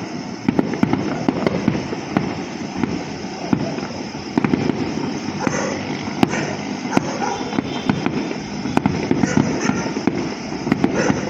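Fireworks going off without a break: a dense run of sharp bangs and crackles.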